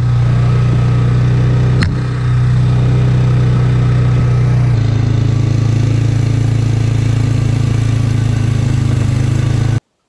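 ATV (quad) engine running steadily while the quad is ridden along a dirt trail, with a sharp click about two seconds in and a slight drop in engine note near five seconds in. The sound cuts off abruptly just before the end.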